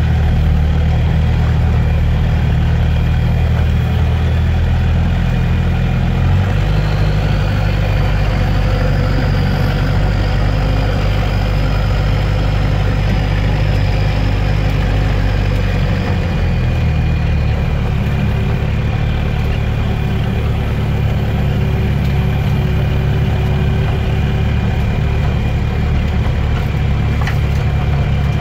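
Off-road vehicle's engine idling, heard from inside the cabin. Its note shifts slightly about six seconds in and again about sixteen seconds in. A faint high whine rises and falls midway.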